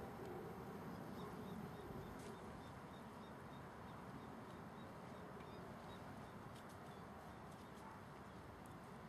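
Faint outdoor ambience, a steady hiss with a few faint clicks, and a quick run of soft high chirps, about three a second, through the first half.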